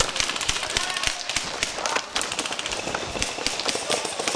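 Someone running through forest undergrowth: quick footsteps and crackling brush, heard as a dense, irregular run of sharp clicks and cracks.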